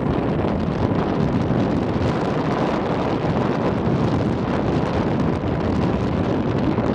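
Steady wind noise buffeting the microphone of a moving motorbike, with the bike's engine and road noise running underneath.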